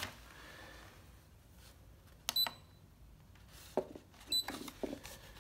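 Kewtech KT64 multifunction tester giving two short high beeps about two seconds apart, with clicks from its test button and handling, as a loop impedance (Zs) test is run on a socket.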